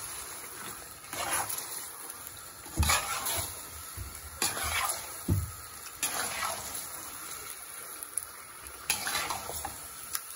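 A metal spoon stirring raw boneless chicken pieces through hot oil and tomato-onion masala in a metal pot, with irregular scrapes against the pot over a steady sizzle. The chicken is being seared on full flame until it changes colour.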